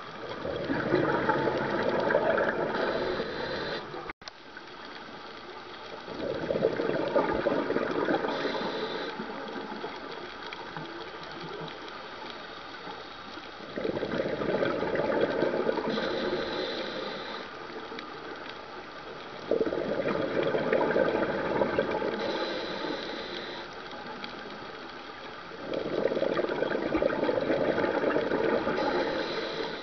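A scuba diver's regulator breathing heard underwater: five bubbling exhalations, each three to four seconds long, coming about every six seconds, with quieter stretches between them.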